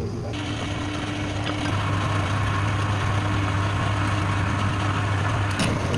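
Woodturning lathe's electric motor running with a steady low hum. About a third of a second in, a continuous hiss starts and holds: a tool cutting the spinning wood.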